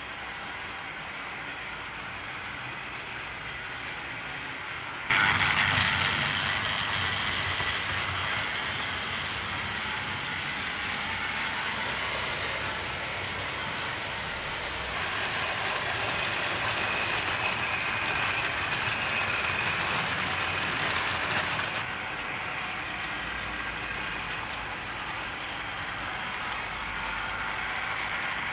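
Tri-ang 00 gauge model trains running on the track: a steady whirr from the locomotive's electric motor with the rattle of the coaches' wheels on the rails. It gets suddenly louder about five seconds in and shifts in tone twice later.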